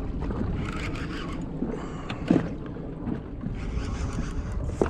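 Steady low rumble aboard a boat at sea, with scattered light knocks and clicks and a louder knock a little over two seconds in.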